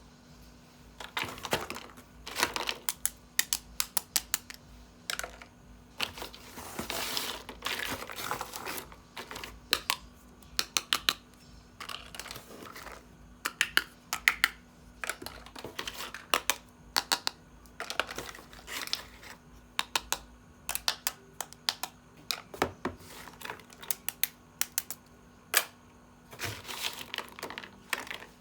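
Plastic packaging crinkling and small plastic toy parts clicking and tapping as a toy set is unboxed, in many short sharp clicks with stretches of crinkle.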